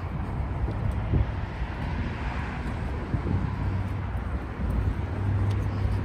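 City street ambience: a steady rumble of road traffic, with a low engine hum growing stronger near the end.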